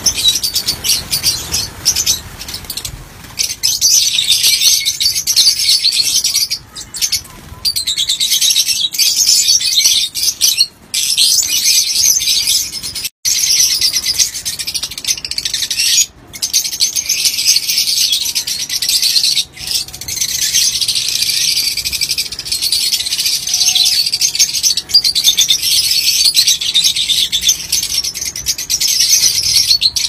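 A large flock of lovebirds chattering in a continuous shrill chorus of overlapping high chirps, broken by a few brief drops in level.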